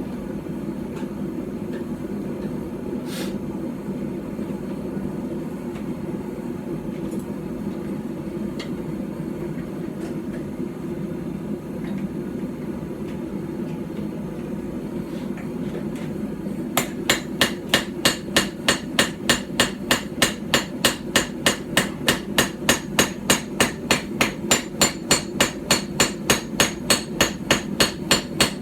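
A small, roughly 12-ounce hand-forged hammer striking hot steel on a stump anvil, drawing out the bevels of a small knife blade. About 17 seconds in the blows start and run on evenly at about three to four a second; before that only a steady low rumble is heard.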